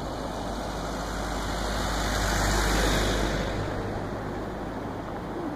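A road vehicle driving past, its engine and tyre noise rising to a peak about halfway through and then fading away, over a steady background of surf and wind.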